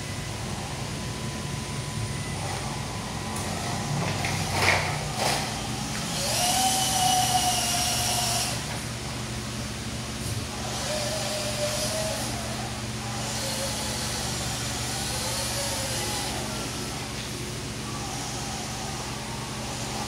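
MN99s RC crawler's small electric motor and gearbox whining as it drives, the pitch shifting up and down with the throttle, loudest from about six to eight seconds in. Two sharp knocks come a little before that.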